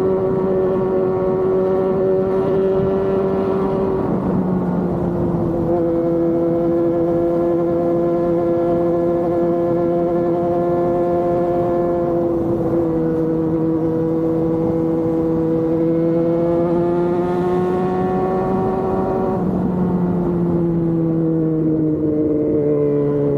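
Motorcycle engine running at steady high revs while riding, its note holding nearly level and stepping down slightly a few times, then easing lower near the end.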